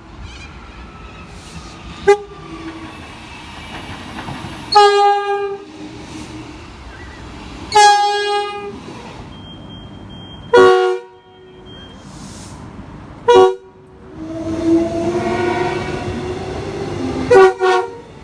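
Train horn sounding a series of short, loud blasts a few seconds apart, with a longer, softer horn note near the end, over the rumble of the passing train.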